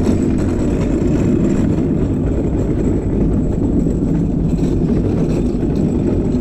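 Gravity-driven luge cart rolling down an asphalt track, its wheels giving a steady low rumble.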